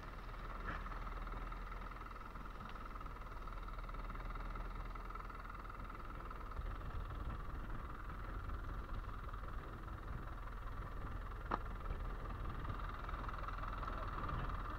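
Fishing boat's engine running steadily, a constant drone with a low rumble, and a single sharp knock late on.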